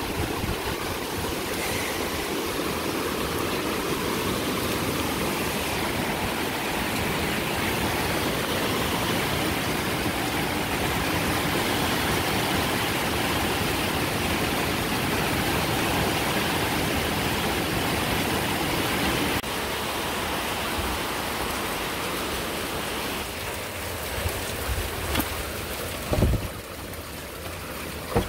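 Steady rush of water, easing slightly about two-thirds of the way through, with a few short knocks near the end, the loudest about two seconds before it stops.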